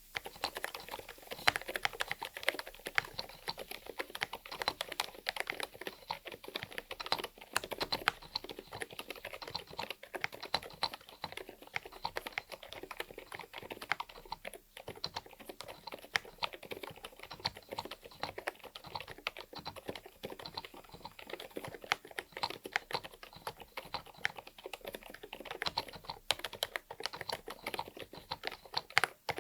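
Typing on an Epomaker DynaTab 75X mechanical keyboard with Sea Salt silent switches: a continuous, fast run of keystrokes.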